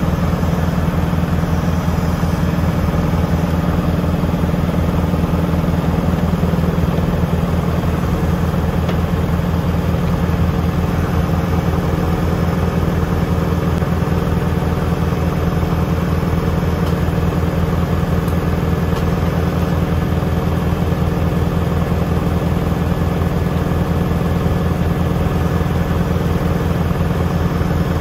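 Tractor diesel engine running at a steady speed, with an even low pulsing throughout.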